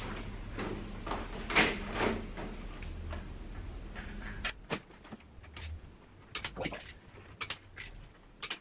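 A few scuffs and knocks, then a click-type torque wrench tightening wheel nuts: a string of sharp metallic clicks from about four and a half seconds in, several in quick pairs, as the wrench reaches its set torque of 204 Nm.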